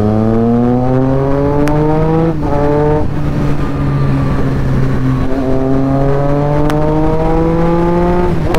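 Triumph Street Triple's inline three-cylinder engine accelerating through the gears. The revs climb steadily and drop at upshifts about two and a half seconds in, again at three seconds, and near the end.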